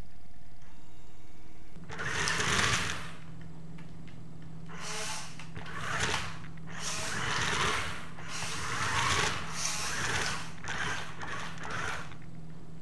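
Small electric motors of a homemade rubber-band machine-gun robot running in repeated bursts of about half a second to a second, over a steady low hum.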